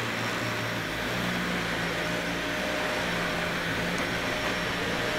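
Upright vacuum cleaner running steadily as it is pushed over carpet: a constant motor whine and suction rush with a low hum underneath.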